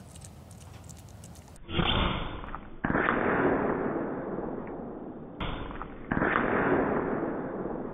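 PCP air rifle shot and the pellet striking the target, heard dull and drawn out as if slowed down: a sudden muffled bang, then a louder one that fades away over a couple of seconds. The same pair comes twice, about a second and a half in and again about five and a half seconds in.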